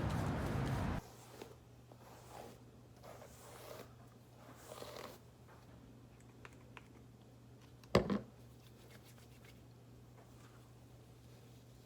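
Small indoor handling noises: soft rustles and scrapes, with one sharp knock about eight seconds in, over a low steady hum. A louder rushing noise cuts off about a second in.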